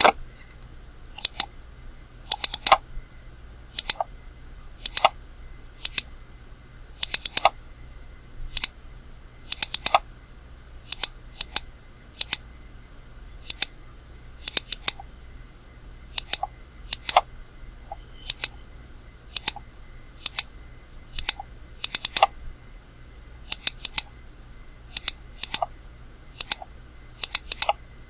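Computer mouse button clicking repeatedly, single clicks and quick double clicks, each a sharp press-and-release, coming about once a second over a low steady hum.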